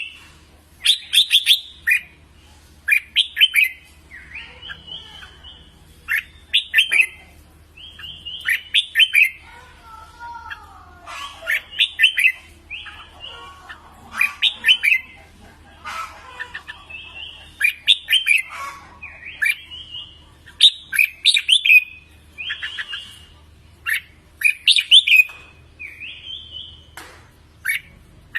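Red-whiskered bulbul song: short, clear, whistled phrases repeated every second or two, with softer, lower warbling between them in the middle stretch.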